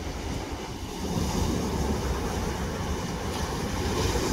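Ocean surf breaking and washing up a sandy beach, with wind buffeting the microphone. The surf gets louder about a second in.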